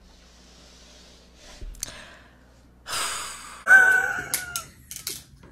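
Close-up eating sounds: a sharp rushing breath about three seconds in, then a short pitched gasp that bends downward, the loudest moment, followed by a few sharp clicks of crab shell and mouth noises. The gasping fits eating very spicy seafood-boil sauce.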